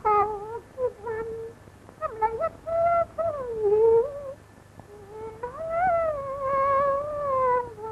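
Cantonese opera music: a single high melodic line that slides between long held notes with vibrato, in three phrases of a couple of seconds each with short breaks between them.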